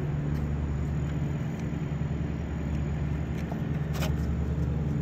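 A steady low mechanical hum, with one short click about four seconds in.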